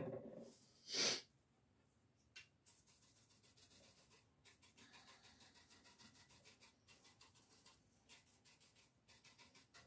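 A brief voiced murmur, then a short, sharp puff of breath about a second in. After that come soft, rapid brushing strokes, about three to four a second, as gold leaf is pounced and rubbed onto the lamp.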